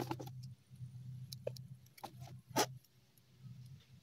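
Faint clicks and ticks of bonsai wire being handled and bent around a young waru sapling's stem: a few scattered clicks, the sharpest about two and a half seconds in, over a low steady hum.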